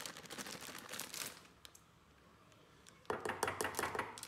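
Plastic flour packet crinkling as wheat flour pours from it into a plastic measuring cup. About three seconds in comes a louder stretch of rustling and rapid tapping as the cup is tipped and emptied into a glass bowl.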